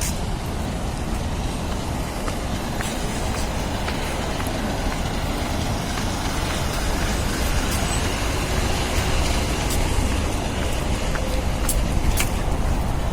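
Steady city street noise: passing road traffic mixed with wind rumbling on the microphone, with a few faint clicks.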